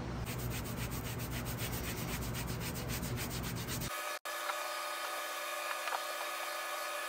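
Gloved hands rubbing and crumbling moulding sand into a wooden casting flask over the pattern: a fast, even, scratchy rubbing for about four seconds. It then cuts abruptly to a steadier background noise with a faint hum.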